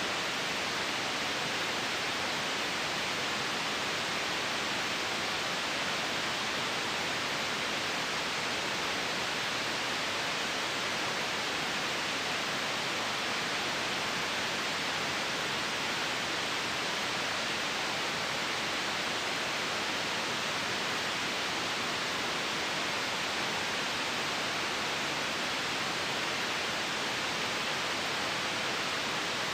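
Steady white noise, an even, unchanging hiss with no other sounds in it.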